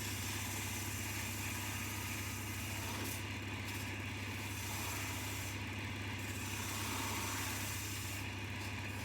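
Coronet 1 wood lathe running steadily with a constant motor hum, and the hiss of a tool cutting the spinning wood that drops away briefly three times.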